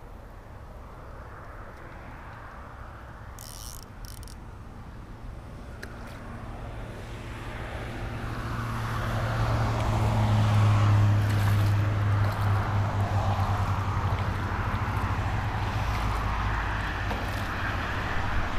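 A motor engine running, growing louder over the first half and then holding steady.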